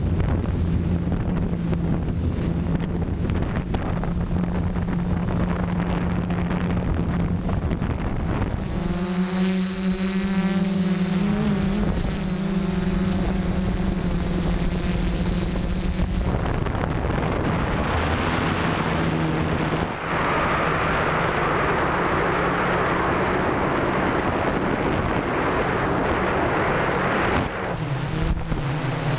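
DJI F550 hexacopter's six electric motors and propellers humming steadily in flight, heard through a GoPro mounted on the frame, with a constant high whine above the hum. The hum wavers and phases for several seconds a third of the way in, and a rushing noise of wind over the microphone builds in the second half.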